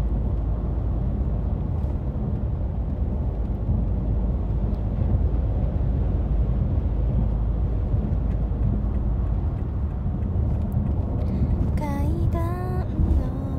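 Steady low rumble of a moving road vehicle, heard from inside the cabin through a phone's microphone. A brief voice comes in near the end.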